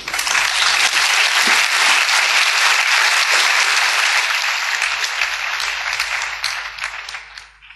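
Audience applauding, dense and steady, thinning into scattered separate claps near the end before cutting off.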